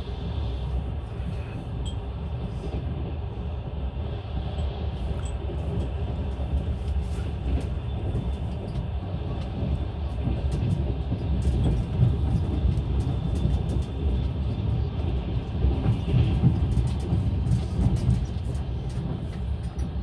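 Passenger train running on the track: a steady low rumble of wheels on rails, with scattered light clicks and knocks.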